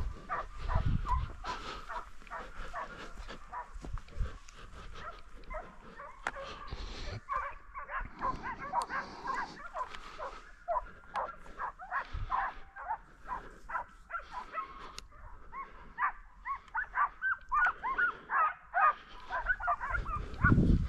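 A pack of hunting hounds baying and yelping on a wild boar chase, their short barks coming faster and more densely in the last few seconds as the drive nears.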